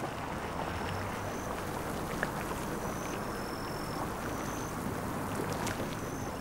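Steady outdoor ambience: a soft, even water-like hiss with faint high thin peeps recurring every second or so and a few small clicks.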